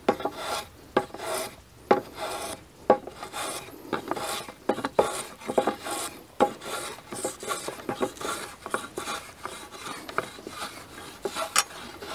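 Hand plane shaving a 4x6 timber beam in repeated short scraping strokes. Each pass takes off a very light shaving to bring the faces square.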